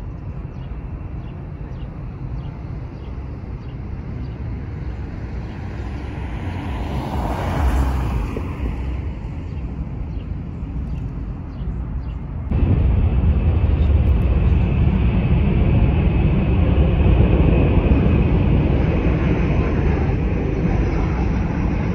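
Embraer 175 regional jet on final approach to land, its engines a steady low rumble that grows slowly louder; about halfway through it jumps to a louder, closer rumble as the jet passes low overhead.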